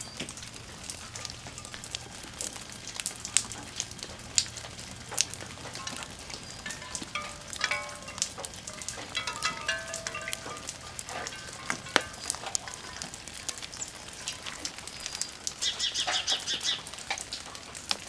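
Wet snow falling and dripping onto leaves: a steady crackly patter dotted with sharp ticks. Birds call now and then, mostly between about seven and eleven seconds in.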